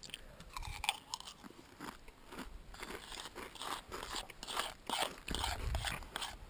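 Dry Raisin Bran flakes, eaten without milk, crunched between the teeth in quick, irregular chews close to the microphone.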